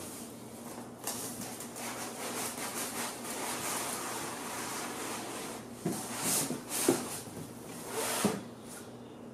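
Cardboard packaging rubbing and scraping as a metal-cased filament dryer is slid out of its shipping box and the foam packing is pulled free, with a few light knocks about two-thirds of the way through.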